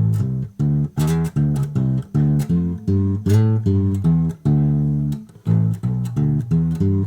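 Improvised bass line plucked on a homemade bass converted from a twelve-string acoustic guitar and strung with guitar strings (three low E strings and one A). The low notes follow one another quickly, each with a sharp attack.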